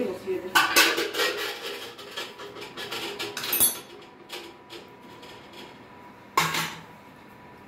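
Metal utensils clinking and scraping against a cooking pot of biryani rice: a run of clattering strokes in the first few seconds, then one sharper, louder clatter near the end.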